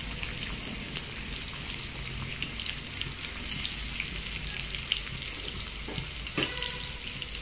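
Chopped onion sizzling in hot oil in a kadhai with mustard seeds and cumin, a steady frying hiss dotted with small crackles and pops.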